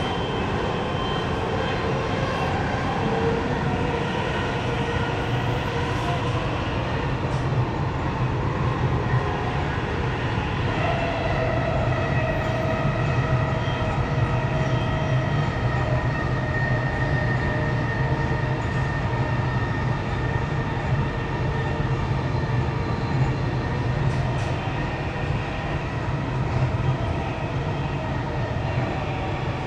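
Dubai Metro train running: a steady low rumble with a few faint whining tones that come and go.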